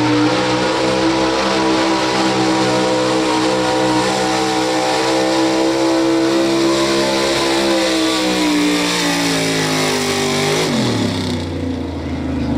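Pro stock 4x4 pulling truck's engine running at high revs under load, the pitch holding steady, then sagging, then falling sharply about ten seconds in as the revs drop.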